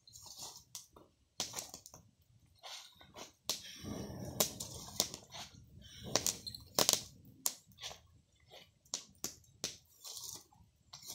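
Small open wood fire crackling, with a stick prodding and shifting the burning wood, dry leaves and corn husks. Irregular sharp snaps and clicks, with a longer rustling scrape about four seconds in.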